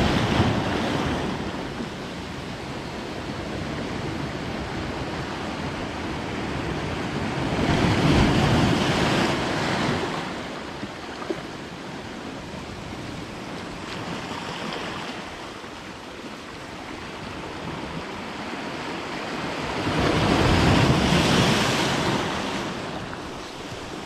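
Sea waves washing in over a pebble beach, surging loud about every six seconds and falling back between, with wind on the microphone.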